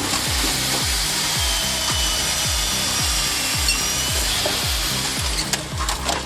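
A power saw cutting through a log with a steady, hissing rasp that stops about five and a half seconds in, over background music with a steady beat of about two thumps a second.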